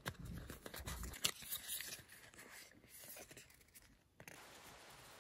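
A small cardboard box of paper stickers being opened by hand, with faint crinkling, scraping and light clicks of paper and card, busiest in the first three seconds and quieter after.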